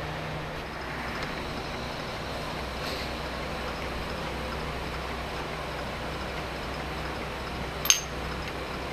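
Steady workshop background hum, with one sharp metallic clink near the end as an aluminium articulating jaw is handled against the steel vise.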